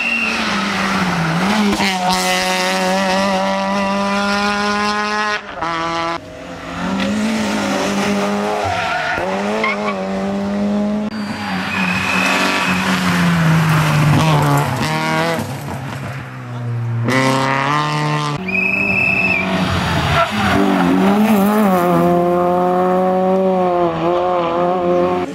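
Small four-cylinder rally cars (Peugeot 206, Peugeot 106, Citroën Saxo) driven flat out one after another on a tarmac stage: engines held at high revs, rising and dipping through gear changes and lifts, with a few short high squeals.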